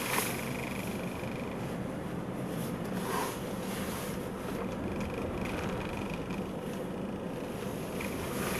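Car driving slowly, heard from inside the cabin: the engine and tyres run steadily, with a light knock near the start and another about three seconds in.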